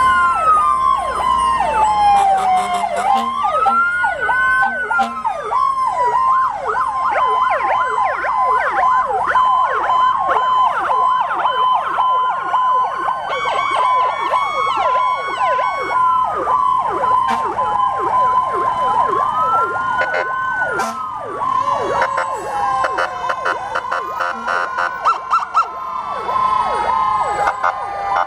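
Sirens of several fire trucks sounding together as they drive past: a slow wail rising and falling about every four seconds, a fast yelp through the middle, and a steady held tone underneath.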